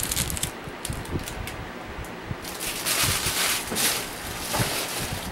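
Electric fan running with a steady rush, while packaging and small items are handled: a few clicks at the start and a louder rustle about three seconds in.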